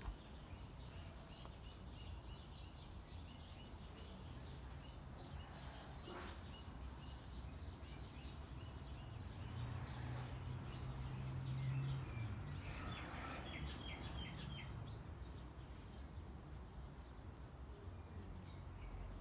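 Small birds chirping and twittering over a low outdoor background rumble, with a quick run of chirps a little past the middle. A low steady hum swells for a few seconds around the middle, then fades.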